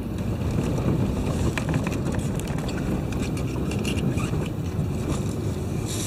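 Road noise heard from inside a moving vehicle on a wet road: a steady low rumble of tyres and engine, with scattered light ticks.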